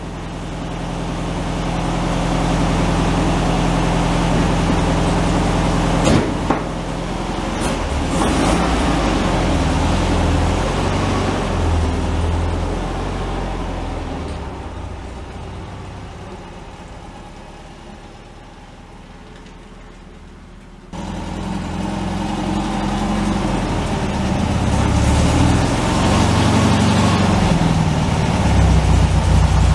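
1964 VW Beetle's 1500cc air-cooled flat-four engine running as the car is moved and turned around, its pitch and level shifting. A sharp knock about six seconds in; the engine fades for a stretch past the middle and comes back suddenly about two-thirds of the way through.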